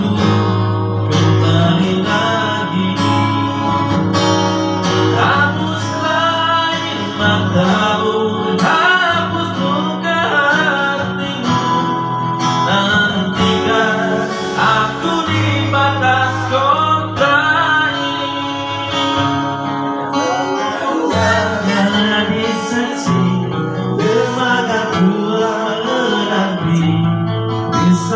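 A man singing a song with guitar accompaniment, his voice wavering through the melody over a steady bass line.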